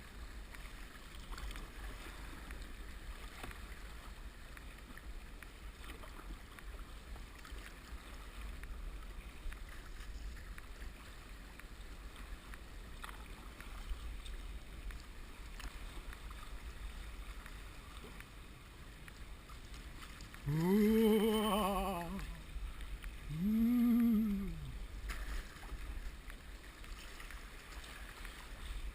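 Kayak out on the sea: a steady wash of water with a low rumble. About 20 seconds in, two drawn-out voice calls, each rising and then falling in pitch, the first about a second and a half long and the second a little shorter.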